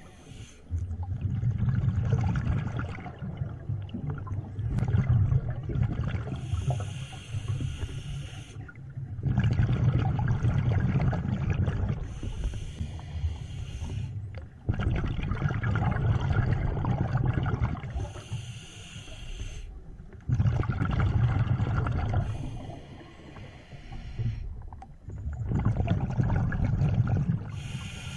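Scuba diver breathing underwater through a regulator in a steady cycle about every six seconds: long rumbling bursts of exhaled bubbles alternate with shorter hissing inhalations.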